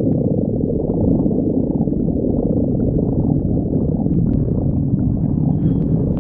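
A person's stomach growling: a continuous low, gurgling rumble with no breaks.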